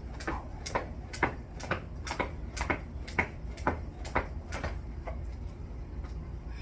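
Jump rope slapping the floor about twice a second, each turn of the rope a sharp click. The clicks turn fainter and sparser after about five seconds.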